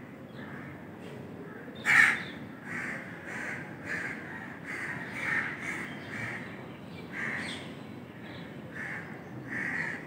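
Crows cawing over and over, short calls about every half-second, with one much louder sound about two seconds in.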